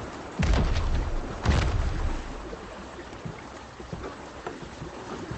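Water rushing past a moving boat, with two loud low thumps about half a second and a second and a half in.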